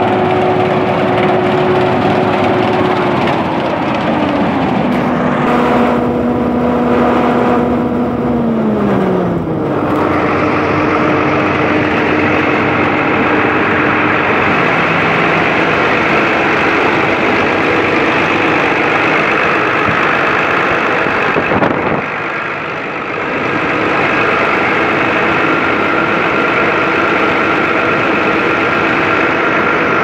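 Massey Ferguson 32 RS combine harvester running, a loud steady engine sound with whining tones that step down in pitch twice in the first ten seconds. From about ten seconds in, the sound is fuller and stays steady, with a brief dip a little past the twenty-second mark.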